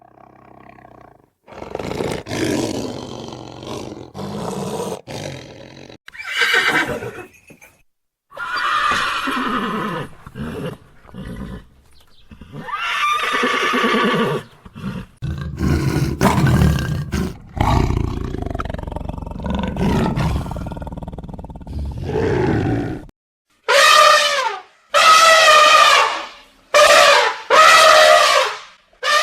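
A string of separate animal calls: low, rough roars and growls for most of the stretch, then four or five loud, high calls that waver in pitch near the end.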